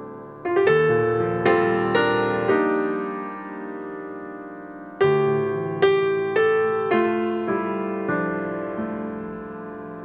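Background piano music: a slow run of struck notes left to ring, fading into a held chord, then a new phrase beginning about halfway through.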